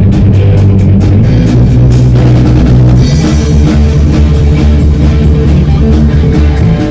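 A rock band playing loudly, with a drum kit, electric guitar and bass guitar. The drums keep a steady beat of repeated hits, and more cymbal wash comes in about two to three seconds in.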